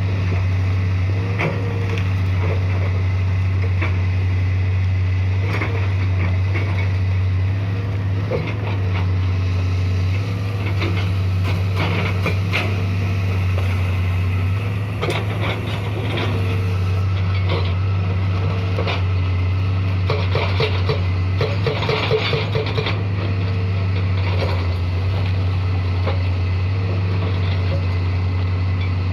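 Hitachi excavator's diesel engine running at a steady low drone, with scattered metal clanks and knocks from the working machine through the middle and a quick rattling run of clicks about two-thirds of the way through.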